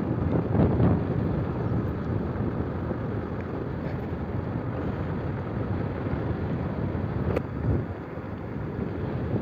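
Motorcycle coasting downhill with its engine switched off: steady rushing wind on the microphone and tyre noise on asphalt, with one sharp click about seven seconds in.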